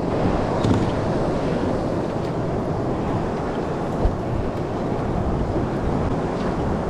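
Wind buffeting the microphone on a boat under way: a steady low rushing noise, with a single dull knock about four seconds in.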